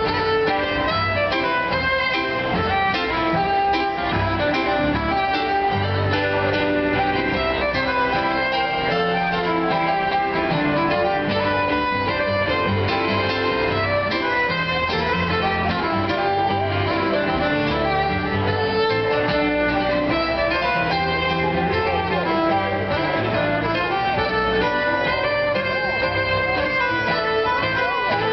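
Cape Breton fiddle music: an amplified fiddle playing a tune over a Yamaha CP stage piano accompaniment, the piano keeping a steady low rhythm under the fiddle's run of notes.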